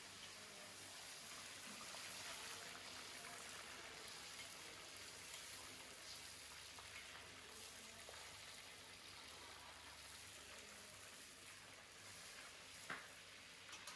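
Meat pieces deep-frying in hot oil in a cast-iron kazan: a steady, faint crackling sizzle. A single sharp knock near the end.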